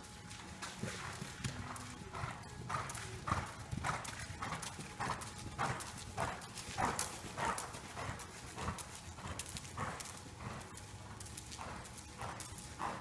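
Horse's hoofbeats on soft arena footing as it is ridden at a steady gait: a regular beat of muffled footfalls, loudest in the middle as the horse passes close.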